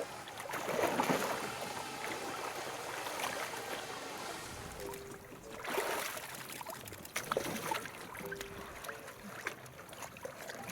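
Water splashing and sloshing in irregular surges, loudest about a second in and again near six seconds in.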